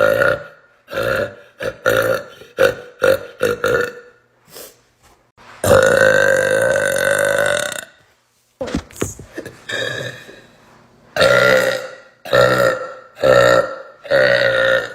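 A young woman burping loudly over and over: a quick string of short burps, then one long burp of about two seconds, then several more medium-length burps.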